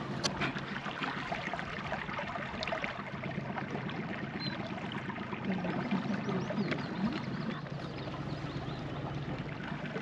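Small boat moving slowly through a shallow, stony passage: water trickling and splashing along the hull over a steady low motor hum.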